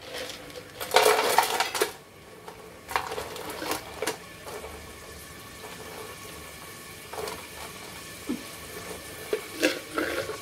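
Clatter and clinks of metal kitchenware handled off to the side: a longer rattling clatter about a second in, more clattering a little later, and a few short sharp clinks near the end.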